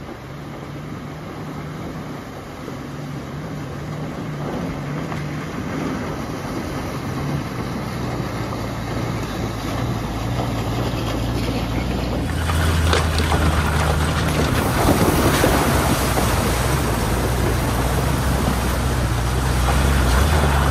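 Tow truck fording a shallow rocky creek: its engine runs steadily and grows louder as it comes closer, with water washing around the wheels. About twelve seconds in, the sound changes suddenly to a close, louder rush and splash of water thrown up by the front tyre, with the engine's low hum underneath.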